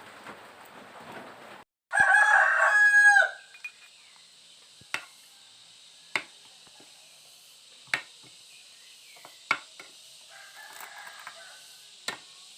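A rooster crowing once, loud, about two seconds in. Afterwards a handful of sharp clicks come at irregular intervals of a second or two, a fainter call near the end, over a steady high insect-like hiss.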